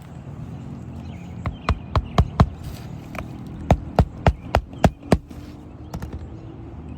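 Hammer driving roofing nails into an asphalt shingle: about a dozen sharp strikes in two runs, the second a steady series of roughly three a second.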